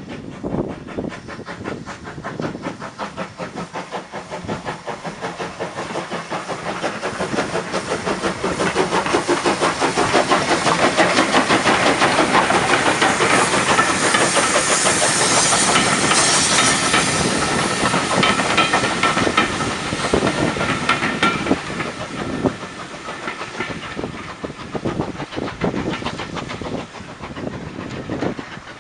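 Steam-hauled passenger train passing close by. A rhythmic clatter of wheels and beats builds to a peak about halfway through, with a loud hiss of steam escaping from beneath the coaches, then fades as the train draws away.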